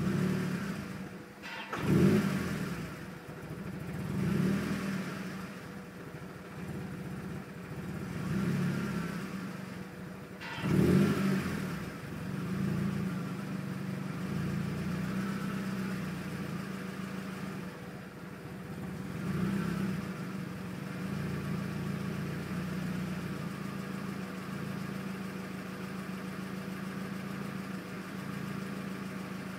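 2001 Mazda Miata's 1.8-litre four-cylinder engine idling roughly at a standstill, the revs surging up and dropping back about five times before settling to a steadier idle. The hunting idle was traced to a failed mass airflow sensor plus a small vacuum leak in the intake pipe.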